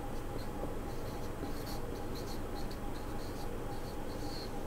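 Marker pen writing on a whiteboard: a run of short, quick strokes as letters are written.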